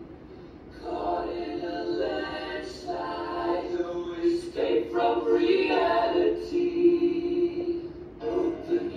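Several voices singing a cappella in close harmony, in sustained phrases with short pauses between them.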